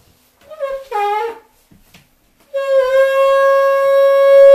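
Shofar, a ram's horn, blown in one long steady note that starts about two and a half seconds in and is held without a break.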